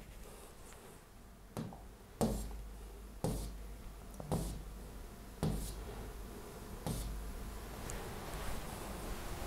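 Six soft knocks or taps, irregularly about a second apart, over a faint low hum.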